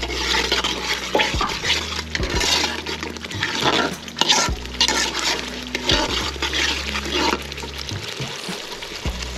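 A long metal spoon stirring thick tomato and pepper sauce in an aluminium pot, with irregular scrapes against the pot's sides and bottom.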